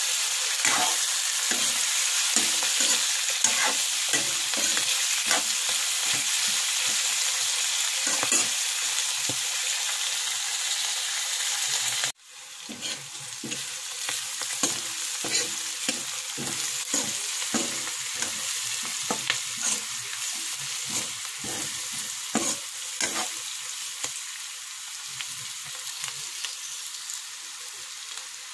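Vegetables sizzling in hot oil in a wok while a spatula stirs and tosses them, with frequent short clacks and scrapes against the pan. The sizzle breaks off abruptly about twelve seconds in and comes back quieter.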